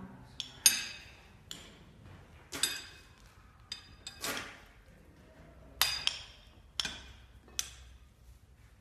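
Irregular sharp clinks of glass or metal, about ten strikes, each ringing briefly with a high tone.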